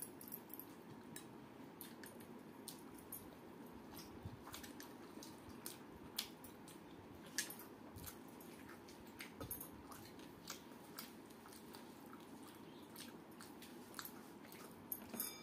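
Faint close-up eating sounds of a person eating pakhala (fermented water rice) by hand: chewing and wet mouth sounds with scattered small irregular clicks and squelches, over a steady low hum.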